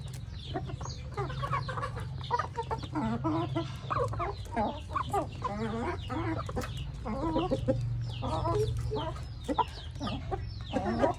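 Several chickens clucking constantly while feeding, many short overlapping calls, with frequent sharp taps of beaks pecking at feed. A steady low hum runs underneath.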